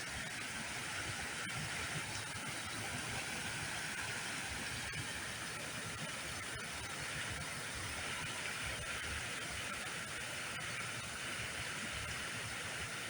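Steady rushing hiss of flowing creek water, with an uneven low rumble underneath.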